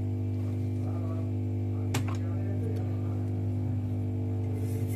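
Hot-air rework station's blower running with a steady low hum, switched on just before, ready to heat and lift the amplifier IC off the circuit board. A single sharp click about two seconds in.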